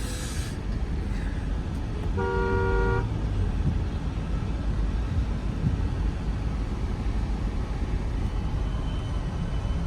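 A car horn blows once, a short toot of under a second about two seconds in, over a steady low rumble of slow traffic.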